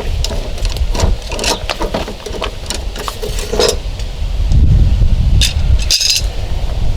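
Irregular clicks and knocks of metal tools being handled while working to lower the spare tire, with a brighter clatter about six seconds in. Wind rumbles on the microphone underneath.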